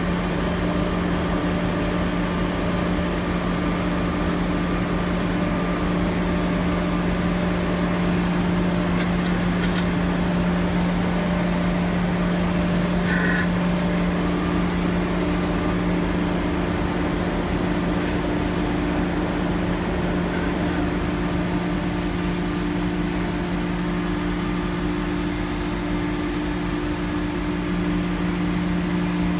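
A running machine hums steadily, a low tone with a higher one above it. Several short hisses from an aerosol maintenance spray can come in the middle and later part.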